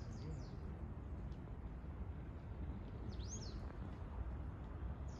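Small birds chirping, a few short high calls just at the start and a quick cluster about three seconds in, over a steady low background rumble.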